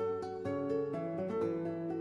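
Instrumental background music, a quick run of plucked notes.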